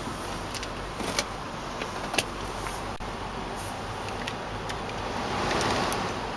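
Cabin sound of a running 2006 Range Rover: a steady low hum with scattered sharp clicks as the gear selector and climate-control buttons and knobs are worked. A brief swell of rushing noise comes about five seconds in.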